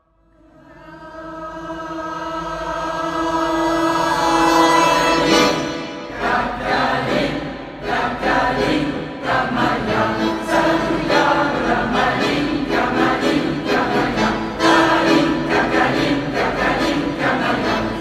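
Large amateur mixed choir singing a Russian song. It fades in from near silence on a held chord that swells over the first few seconds, then goes into the song in a steady rhythm.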